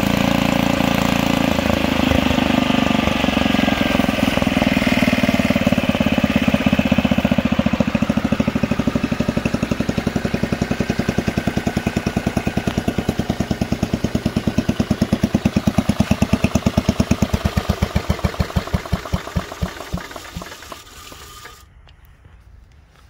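Single-cylinder Briggs & Stratton engine of a 1960 Jim Dandy garden tractor running, then shut down. Its firing slows into separate beats over the last few seconds and stops about 21 seconds in.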